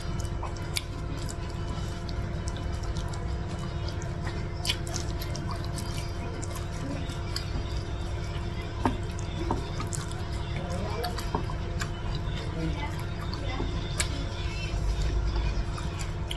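Wet eating sounds: fingers picking at saucy chicken and mouth chewing, heard as short clicks and smacks scattered through, over steady background music.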